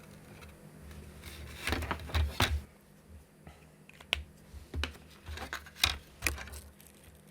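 Irregular small clicks and taps from handling hard plastic and circuit-board parts, as a board is offered up to the case's screw holes: a quick cluster about two seconds in, then scattered single clicks through the middle.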